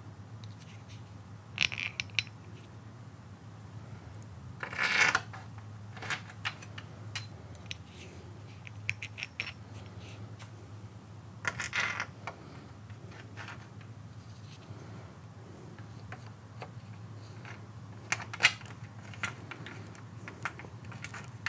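Light clicks and clinks of sliding-door handle hardware being handled and fitted: a composite handle, its oval mounting plates and a metal stud, with a few louder knocks spread through.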